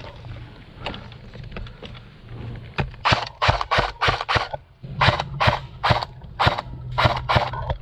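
Airsoft gun firing a quick, irregular string of single shots, about two to three a second. The shots begin about three seconds in and break off briefly halfway through.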